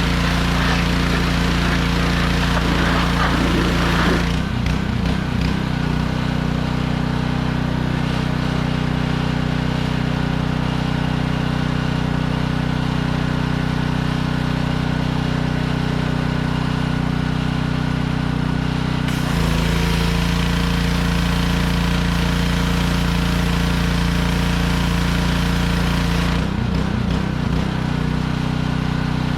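Small engine of a pressure washer running steadily, with a hiss of high-pressure spray that is strong for the first four seconds, drops away, and comes back for several seconds past the middle. The engine note shifts each time the spray starts or stops.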